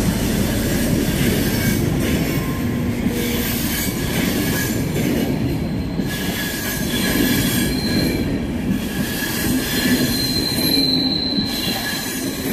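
Passenger train coaches rolling past at close range, a steady loud rumble of wheels on rails. A thin, high squeal from the wheels comes and goes, strongest near the end.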